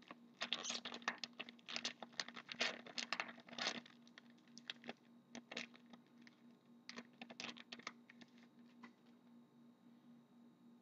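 A trading-card pack's wrapper being torn and crinkled by hand as the pack is opened. Dense crackling for the first few seconds, then sparser rustles that die away near the end.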